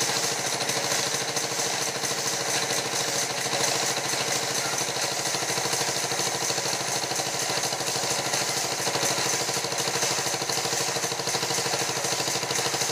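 Belt-driven band sawmill machinery running steadily, with a fast, even mechanical pulsing throughout.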